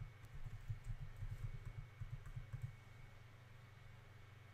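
Faint computer keyboard typing: scattered soft keystrokes over a low hum. The keystrokes die away about two-thirds of the way through, leaving the steady hum.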